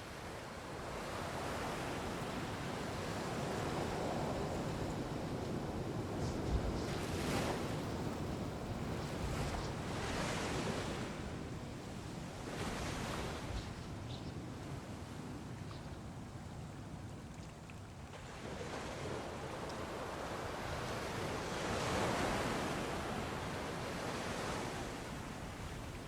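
Wind rushing and gusting during a thunderstorm, a steady noise that swells and fades every few seconds.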